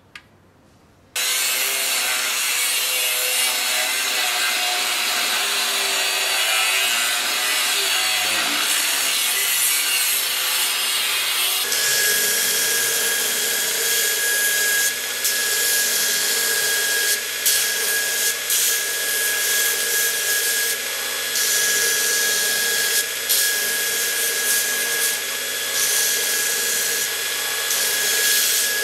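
Belt grinder grinding a small steel part, a sword pommel being shaped against the belt. The grinding starts abruptly about a second in, and from about the middle a steady high whine runs through it.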